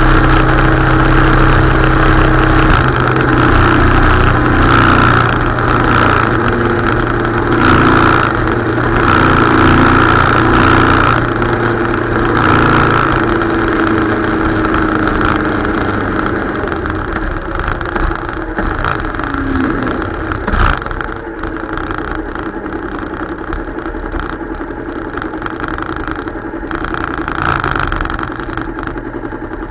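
Motorcycle engine running at a steady road speed under a rush of wind and road noise. The engine note eases off and the sound drops about halfway through, as when rolling off the throttle.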